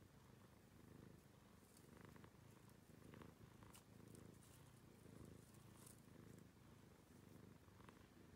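A relaxed domestic cat purring faintly and steadily while its head is rubbed, the purr swelling and fading about once a second with each breath. There are a few faint clicks and rustles over it.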